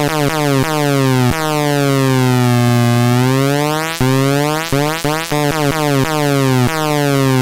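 Atari Punk Console, a two-555-timer square-wave noise synth, giving a loud buzzy electronic tone. Its pitch slides down and back up over a few seconds and jumps suddenly between steps several times.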